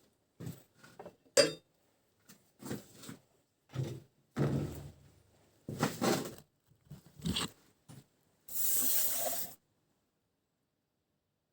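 Irregular metal clinks, knocks and rattles of hand-handled parts or tools, with one sharp knock about a second in. A hiss lasting about a second comes near the end.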